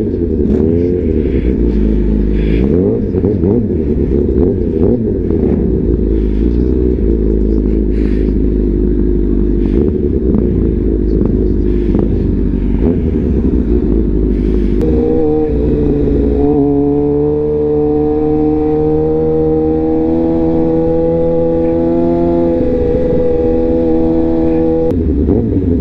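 Suzuki GSX-R 750 inline-four engine heard from the rider's seat, pulling away at low revs with its pitch wandering up and down. About fifteen seconds in it settles into a steady, higher, even tone while cruising, then eases off near the end.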